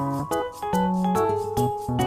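Background music: an upbeat tune of piano or keyboard notes over a steady beat.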